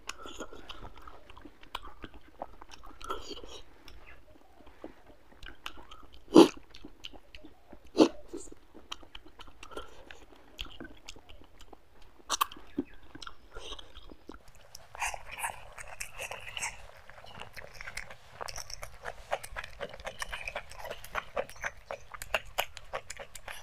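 Close-up chewing of rice and fish masala eaten by hand, with many small mouth clicks and crunches. There are two sharper, louder clicks about six and eight seconds in, and the chewing grows denser from about fifteen seconds on.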